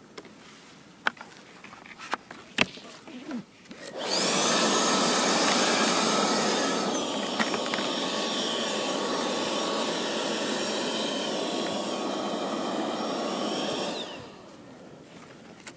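Battery-powered electric fan of a Black Diamond JetForce avalanche airbag pack running. It spins up with a rising whine about four seconds in, drops to a lower pitch around seven seconds, runs steadily, then winds down near the end. A few sharp knocks come before it.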